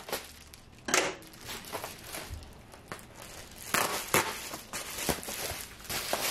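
Plastic packaging crinkling and rustling in irregular bursts, as of grocery bags being handled and unpacked.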